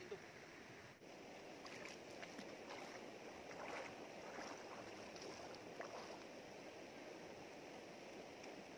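Shallow river flowing over rocks, a faint steady rush of water, with a few faint clicks and knocks during the first half.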